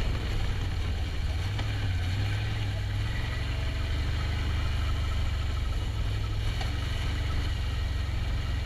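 A 2000 Jeep Grand Cherokee's V8 engine running with a steady low drone while the Jeep moves slowly along the trail.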